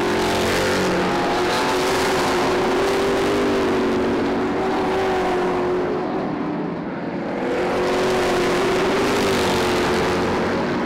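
Several Super Stock race cars running at speed together on a paved oval, their engines' tones layered over one another. The sound dips briefly about six to seven seconds in as the pack moves away, then rises again as the cars come back round.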